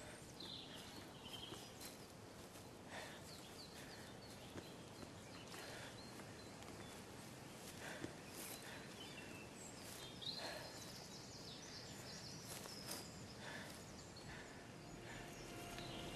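Quiet rural outdoor ambience: faint scattered animal calls and a few sharp knocks at irregular intervals over a steady low hiss.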